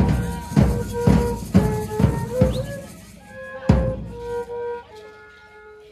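Dance music played on a violin and a large drum: a held melody over drum beats about twice a second. The drumming stops after one last heavy beat about four seconds in, while the melody goes on more quietly.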